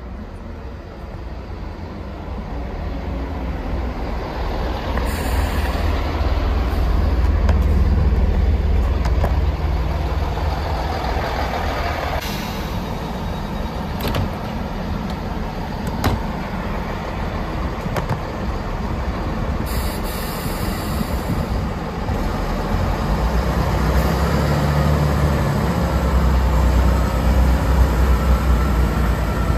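Chiltern Railways diesel multiple units at a platform: a unit arriving with its underfloor diesel engines rumbling, growing louder over the first several seconds. A couple of sharp knocks come midway, and the engine rumble swells again near the end.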